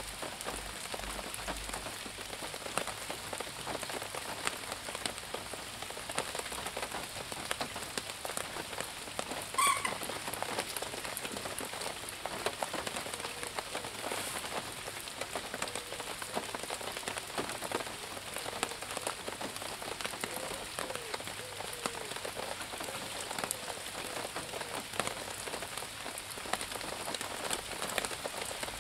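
Heavy rain falling steadily, a dense patter of small drop impacts, with one brief high-pitched sound about ten seconds in.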